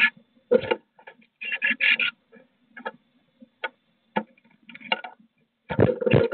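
A great tit moving about inside a wooden nest box, heard from inside the box. Its claws and beak make irregular taps and scratches on the wood, in quick clusters, as it hops around and picks at seeds.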